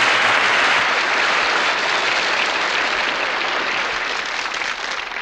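Audience applauding, the applause slowly fading away toward the end.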